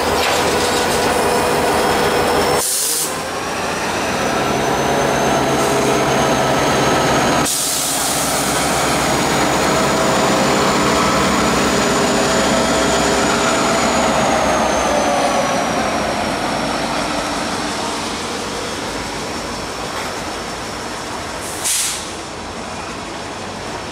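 Freight train rolling past on the tracks, a steady rumble of wheels and cars with a thin high-pitched ringing that rises slightly and then falls away. There are short hissing bursts about 3, 7 and 22 seconds in, and the sound eases off toward the end.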